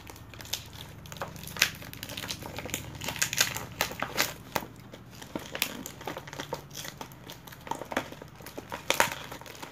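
Paper crinkling and rustling in quick, irregular crackles as hands dig into and unwrap a paper gift bag.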